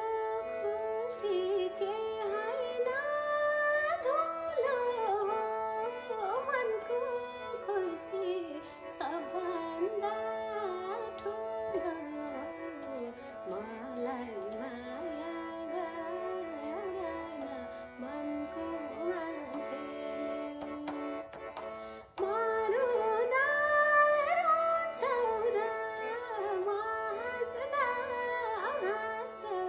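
A woman singing a Nepali song in a wavering, ornamented melody over a backing track with a steady drone; the music gets louder about two thirds of the way through.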